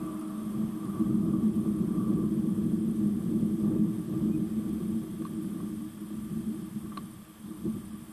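Steady low mechanical hum with two low tones over a rough rumble, easing off in the last couple of seconds.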